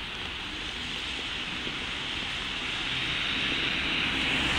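Class 50 diesel locomotive 50008 Thunderer approaching at the head of a train, its engine growing steadily louder over a steady hiss of rain.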